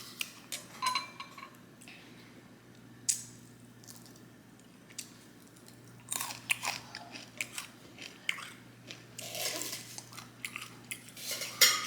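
Close-up chewing and biting into food, with crunchy bites, coming in clusters that grow busier about halfway through.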